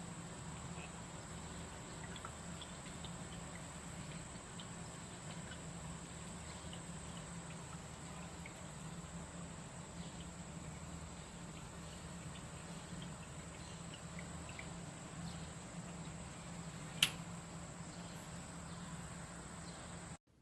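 Faint steady low hum with a thin, steady high-pitched whine over it, scattered faint ticks or drips, and one sharp click about seventeen seconds in.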